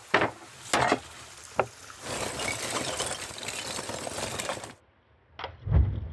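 A few sharp knocks of a raw bone-in steak handled on a wooden cutting board, then a steady rustling clatter of lump charcoal in a grill. After a short pause comes a click and a low whoosh as the fire flares up.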